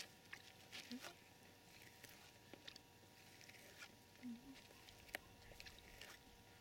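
Near silence: faint, scattered short clicks and taps, with two brief low sounds, one about a second in and one a little after four seconds.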